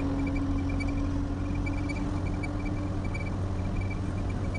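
Eicher truck's diesel engine and road rumble heard from inside the cab while driving: a steady low drone with a hum that fades out about three seconds in, and a light, irregular ticking rattle.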